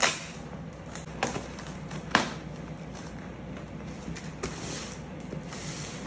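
Scissors cutting packing tape on a cardboard box: three sharp snips about a second apart, the third the loudest. Then scraping and rustling as the cardboard flaps and tape are pulled open.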